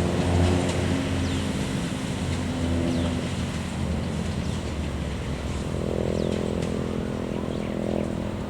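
Diesel locomotive idling with a steady low engine hum and several held tones, a brighter, higher hum coming in at about six seconds. Short, high falling chirps sound now and then over it.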